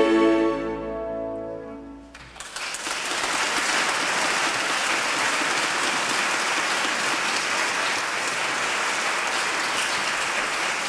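An orchestra's final held chord fades out over about two seconds, then the audience breaks into steady applause.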